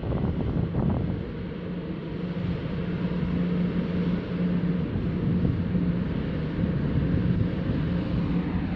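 Wind buffeting the microphone, with a steady low engine hum underneath.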